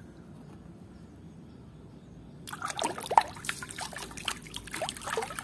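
Faint, steady background for the first couple of seconds, then water sloshing, splashing and dripping from about two and a half seconds in as a hand washes a plastic toy in a tub of water.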